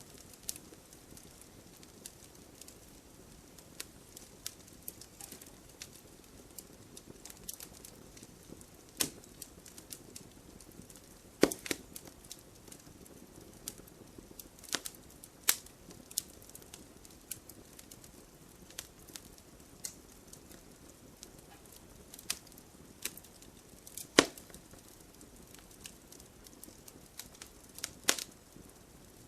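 Burning firewood crackling over a faint steady hiss, with irregular sharp pops and snaps scattered throughout; the loudest snaps come about eleven and twenty-four seconds in.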